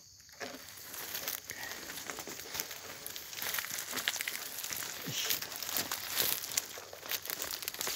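Ferns and dry leaf litter rustling and crackling underfoot and against the body as someone moves through forest undergrowth, in irregular crackles throughout.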